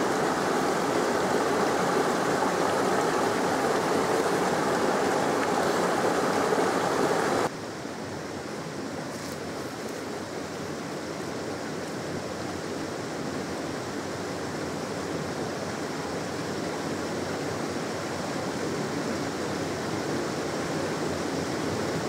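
Steady rushing of a moorland beck's water, with no other sound standing out. About seven seconds in it drops suddenly to a quieter level and carries on.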